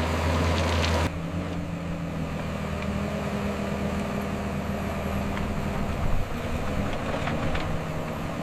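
Motor grader's diesel engine running steadily. About a second in, the sound changes abruptly to a quieter, steady engine hum.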